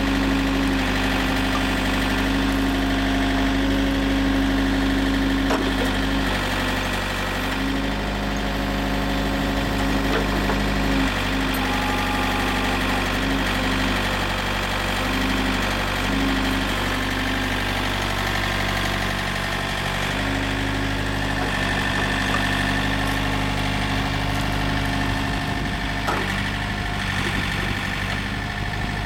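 Yanmar LX450 backhoe's diesel engine running steadily, its note dipping and shifting slightly a few times.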